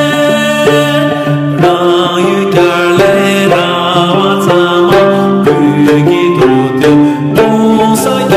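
A man singing a Tibetan song to his own accompaniment on a dranyen (Tibetan lute), its plucked strings keeping a steady, quick rhythm under the voice.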